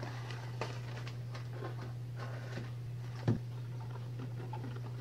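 Small handling noises on a kitchen counter: light rustles and clicks, with one louder knock about three seconds in, over a steady low hum.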